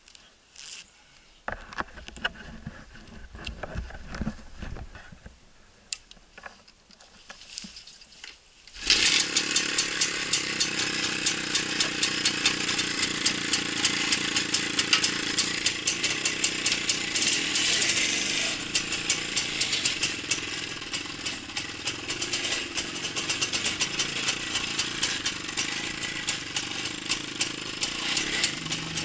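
A Minsk motorcycle's two-stroke single-cylinder engine comes in suddenly about nine seconds in, loud, and keeps running with a fast, even patter of firing pulses. Before that there are only faint low rumbles and a few knocks.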